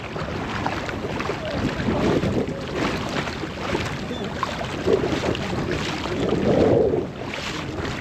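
Wind rumbling on the microphone over water lapping against a kayak's hull, swelling louder about six seconds in.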